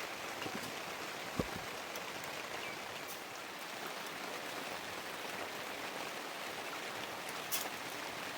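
Steady heavy rain falling, an even hiss, with a single low thud about a second and a half in and a short sharp tick near the end.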